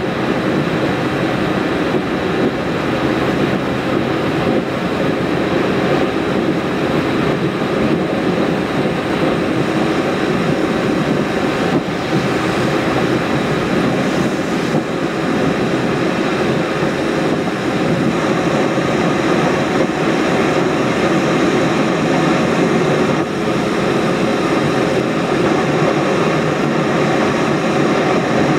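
Steady road and tyre noise with the engine running, heard from inside a car cruising at motorway speed.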